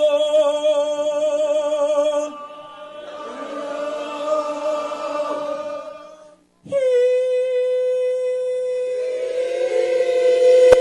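A man sings a long held yodel note with vibrato for about two seconds, then a roomful of audience voices sings it back raggedly. About six and a half seconds in he holds a second, slightly lower and steadier note, and the crowd joins in again near the end.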